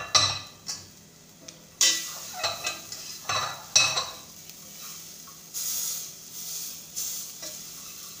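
A metal spoon scrapes and clinks against a stainless steel pot as minced garlic fries in a little oil, with several sharp strokes in the first four seconds. A light sizzle fills the rest.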